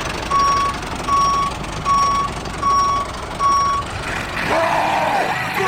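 Vehicle reversing alarm beeping at an even pace, five steady single-pitch beeps a little under a second apart over a steady background hum. It stops about four seconds in, and a voice yelling with a sliding pitch follows near the end.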